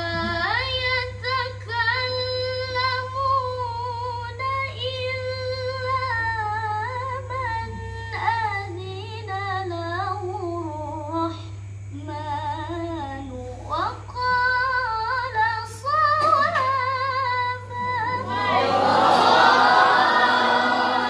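A young woman's solo voice reciting the Quran in the melodic nahawand maqam, with long held notes ornamented with trills and turns. Near the end many voices join in together, louder, a group reciting at once. A steady low electrical hum runs underneath.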